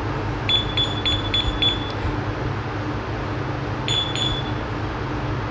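Two-way motorcycle anti-theft alarm beeping in answer to its key-fob remote: about five quick high beeps in just over a second, then two more a few seconds later, as the alarm is set and released.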